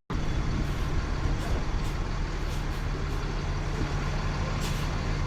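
Bus engine running steadily, a low even hum under road noise.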